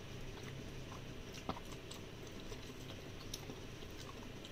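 Faint close-up chewing of a bite of raw green chili, with a few soft clicks, the sharpest about a second and a half in.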